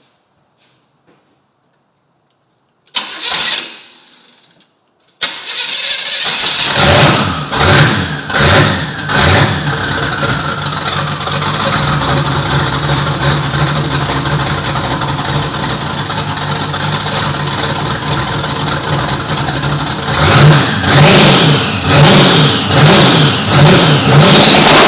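Twin-turbo Chevy 350 V8 with open downpipes being started: a short burst about three seconds in fades out, then the engine catches about five seconds in. It is revved in a few quick blips, idles steadily, and is revved in blips again near the end.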